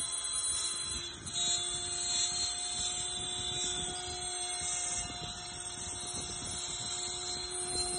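CNC router spindle engraving a tube held on the rotary axis: a steady whine over a rough cutting rasp, the whine stepping slightly higher about a second in.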